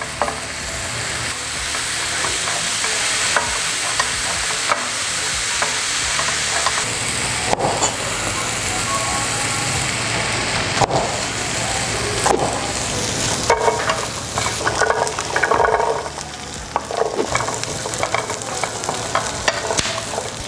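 Garlic, shallot and onion paste sautéing in oil in a non-stick frying pan: a steady sizzle, with a wooden spatula stirring and scraping against the pan. A few sharp knocks come in from about halfway.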